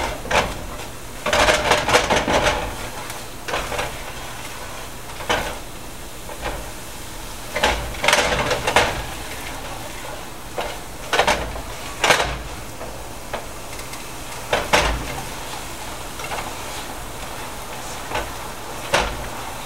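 A flour roux sizzling in a pan, with a utensil stirring and scraping against the pan in short clattering bursts every second or two.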